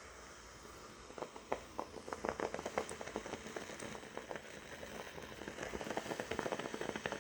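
Water sizzling and crackling as it boils off into steam under heat applied to a wetted dent in timber. The crackles start about a second in and grow denser. This is the steam swelling the crushed wood fibres back up.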